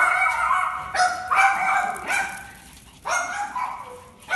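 Small dog barking repeatedly, high-pitched yapping barks about one a second.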